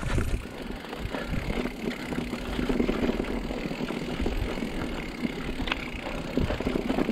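Mountain bike rolling down a dirt trail: tyres on dirt and roots over a steady low rumble, with many short knocks and rattles from the bike over bumps.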